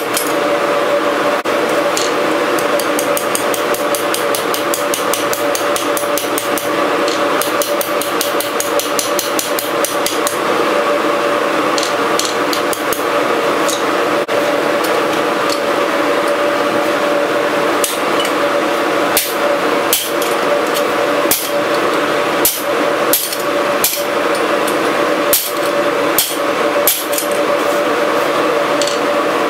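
Hand hammer striking a red-hot rebar on an anvil, sharp blows coming about once a second in the second half, over a steady drone. Earlier come two runs of quick light ticks, about five a second.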